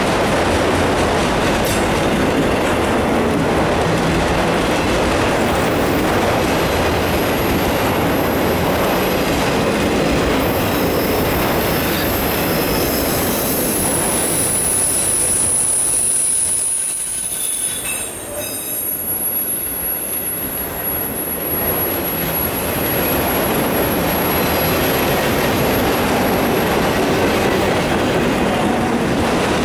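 Autorack freight cars rolling by, with a steady noise of steel wheels on the rails. A thin, high wheel squeal comes in partway through, and the sound drops briefly a little past the middle.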